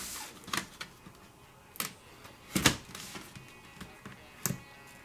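A cardboard product box being worked at while trying to open it: a few separate sharp scrapes and knocks, the loudest a little under three seconds in.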